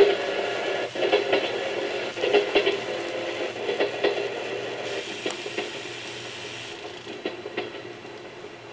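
Recorded running sound of a JNR 101 series electric train played through a sound control unit's speaker: paired clickety-clack of wheels over rail joints, repeating a little more than once a second and slowly fading.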